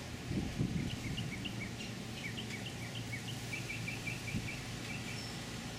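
Small bird chirping in short, scattered notes, with a quick even run of repeated chirps partway through, over a steady low hum and background noise.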